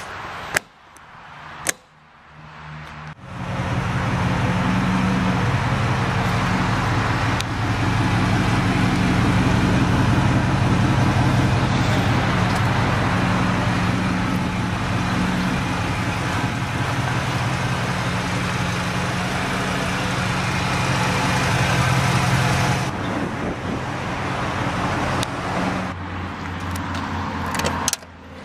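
A motor vehicle engine running steadily for about twenty seconds, then easing off, with a couple of sharp clicks at the start and more clicks near the end.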